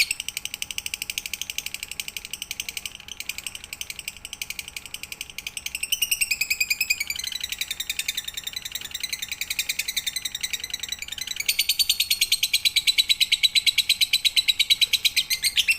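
Lovebird singing a long, fast, unbroken trill of high chirps, the drawn-out chatter that lovebird keepers call ngekek. It swells louder about six seconds in, with a few falling sweeps, and again near the end.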